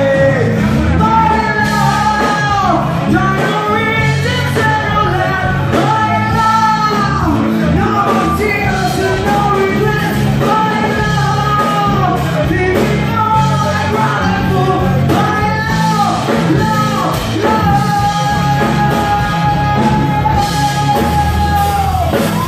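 Live rock band with a woman singing lead over electric guitar, bass guitar and drums. Near the end she holds one long sung note.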